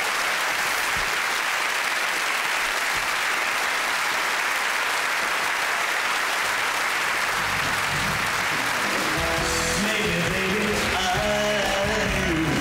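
Audience applauding. About seven seconds in, a live band starts up with bass and chords, playing on under the clapping.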